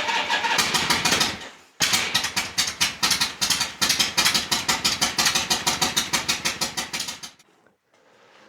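Harley-Davidson V-twin motorcycle engine running with a fast, even beat of firing pulses. It stops abruptly about a second and a half in, resumes almost at once, and cuts off about seven seconds in.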